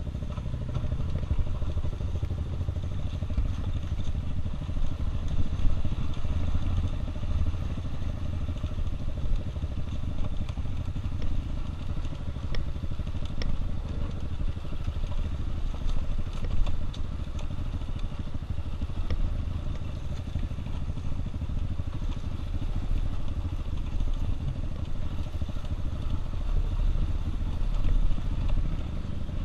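Dirt bike engine running steadily under way on a rough trail, with scattered rattles and clicks from the ground and chassis.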